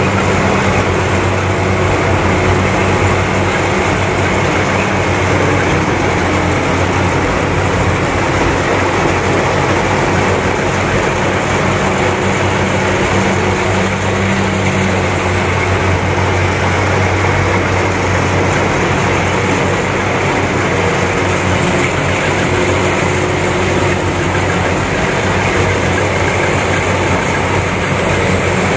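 Rice combine harvester running steadily as it cuts standing ripe rice: a continuous engine hum under an even mechanical noise from the machine, with no change in pace.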